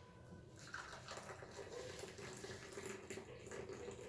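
Hot tea being poured from a pan through a strainer into cups: a soft, steady trickle of liquid.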